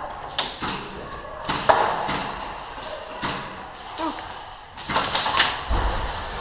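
Scattered sharp snaps of airsoft guns firing single shots, about a dozen spread unevenly, with a cluster of several quick snaps about five seconds in followed by a dull thud.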